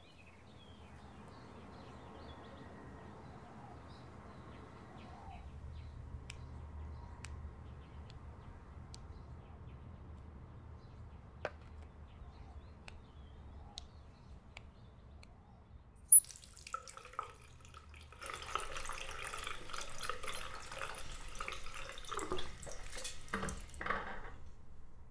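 Bathroom sink tap running a thin, spluttering trickle of water for the last several seconds, as the water supply runs dry. Before it there is only faint room tone with a few small clicks, and one sharp click about two-thirds through.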